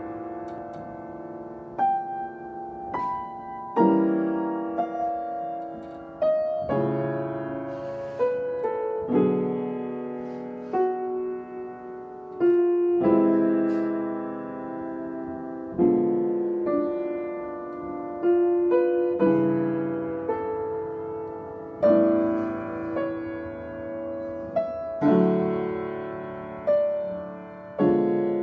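Upright piano played slowly: full chords struck about every three seconds and left to ring and die away, with a few single notes between.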